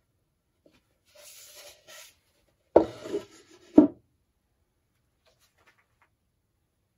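Light scraping of a dried gourd rubbing against the end of a wooden banjo neck blank. This is followed by two sharp knocks about a second apart as the gourd is lifted off and set down on the wooden workbench.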